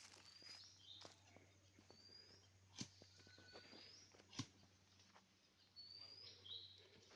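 A bird faintly repeating a short rising whistled call with a lower note after it, about every one and a half to two seconds. Two sharp clicks stand out nearer the middle.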